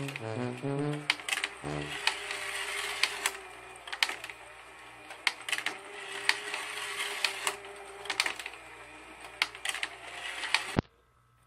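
Battery-powered children's fishing-game toy running: a short toy melody ends about two seconds in, then its motor whirs while the pond and ball-track mechanism click and rattle irregularly. Everything cuts off suddenly near the end as the toy stops.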